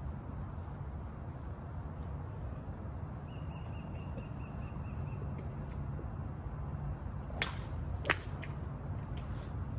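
Two sharp cracks of golf clubs striking balls, the second, about a second after the first, much louder. A faint rapid bird trill comes earlier over a steady low background noise.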